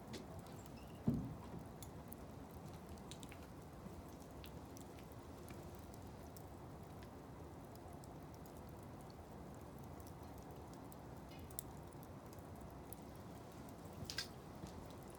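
Blocks of wood burning in a fire basket, crackling faintly with scattered sharp pops over a steady low hiss. There is a dull thump about a second in and a brief louder burst of crackles near the end.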